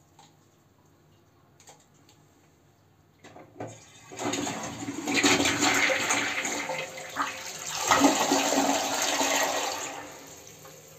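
Toilet flushing: a few faint clicks about three seconds in, then a loud rush of water swirling down the bowl for about six seconds, fading to a lower hiss near the end.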